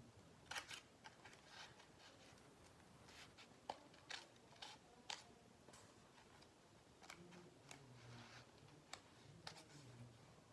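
Faint scattered clicks and rustles of paper and tape being handled, with a few sharper ticks.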